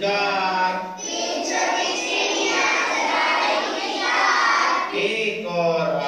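Young children singing a rhyme together.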